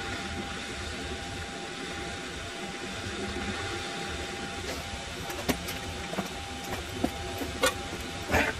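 Mini lathe running, its motor and spinning chuck giving a steady hum with a constant whine. A few sharp ticks break in over the second half, the loudest near the end.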